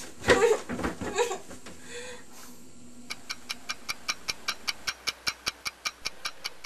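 A girl's wordless vocal sounds for about the first two seconds. Then, about three seconds in, a clock begins ticking fast and evenly, about five ticks a second.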